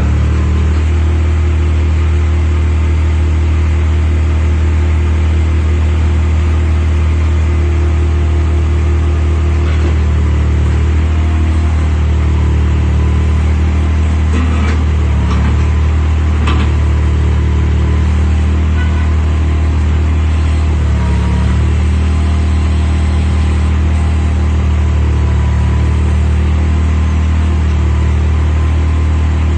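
Komatsu WA30-2 mini loader-backhoe's diesel engine running steadily at a constant speed, with a few faint clicks and a slight change in its note about two-thirds of the way through.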